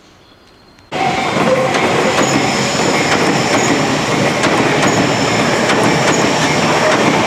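Electric train passing close by at speed across a level crossing, its wheels clattering over the rail joints. The noise starts abruptly about a second in and stays loud.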